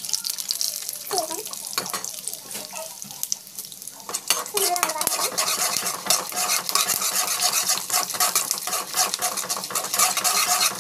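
Peanuts frying in hot oil in a pan, sizzling and crackling while a steel ladle stirs and scrapes against the pan. The crackling turns much denser and louder about four seconds in.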